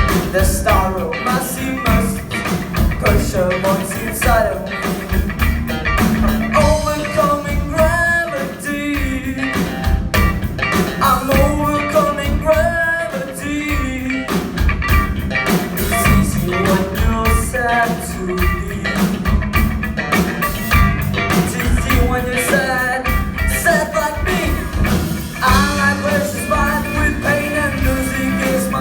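A rock song with singing over electric guitar, bass and drums.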